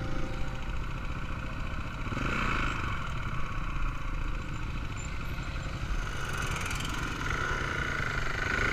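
Single-cylinder dual-sport dirt bike running along a gravel road, heard from on board, with wind noise over the camera microphone.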